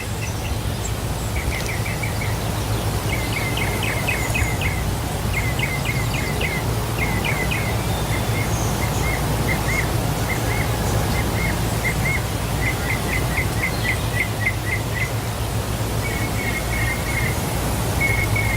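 Waterfall rushing steadily, with a small bird singing over it in short runs of quick, repeated high chirps, several notes to a run, again and again.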